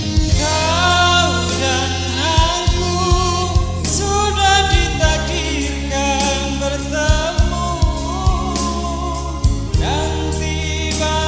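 Live pop music: a melody line over steady bass notes and drum-kit beats, with a new phrase starting on a rising swoop near the end.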